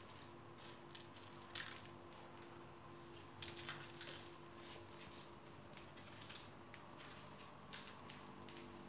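Faint, scattered scuffs and scratches of kittens' paws and claws on a tiled floor as they play, the loudest about a second and a half in and a few more around the middle, over a steady low room hum.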